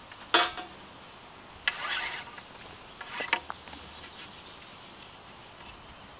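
Rope being pulled around crossed poles and drawn tight while tying a square lashing: three short rubbing swishes of rope, about half a second in, around two seconds in, and just after three seconds.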